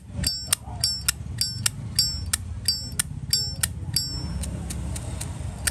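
Zippo lighter's lid flicked open and snapped shut again and again, the opening giving the bright ringing Zippo 'ching' and the closing a click, about one open-and-close every 0.7 s. About four seconds in the ringing stops, leaving fainter clicks.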